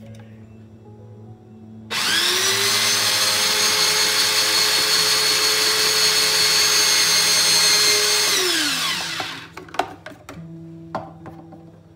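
The motor of a Moulinex Fresh Express electric slicer-grater switches on about two seconds in, spinning up with a quick rising whine. It runs steadily as its spinning cone slices mushrooms pressed down the chute, then winds down with a falling whine. A few knocks follow after it stops.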